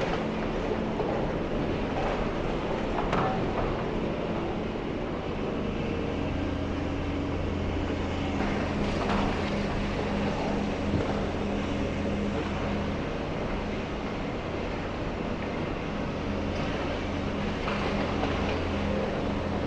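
Heavy diesel demolition machinery, a high-reach excavator, running steadily with a low drone, with a few faint knocks as it works debris loose.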